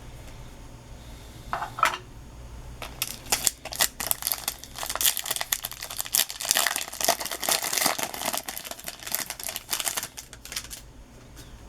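Foil trading-card pack wrapper crinkling and rustling as it is handled and opened. The crackle starts about three seconds in and stops shortly before the end.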